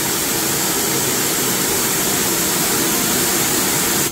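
EGO 56V cordless pressure washer spraying a jet of water onto concrete through a 15-degree nozzle on its high setting, making a loud, steady hiss over the pump's running. The spray cuts off suddenly at the end as the trigger is released.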